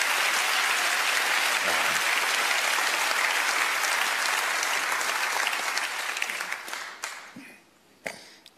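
Theatre audience applauding a punchline, steady for about six seconds and then fading out, with one last isolated clap near the end.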